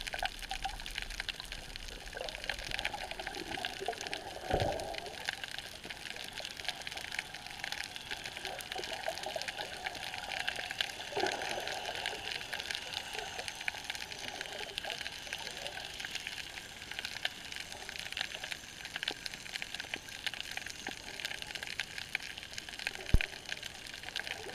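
Underwater sound heard through a camera's waterproof housing: a steady crackle of fine clicks with swells of bubbling and rushing water from a swimmer moving close by, and one sharp knock near the end.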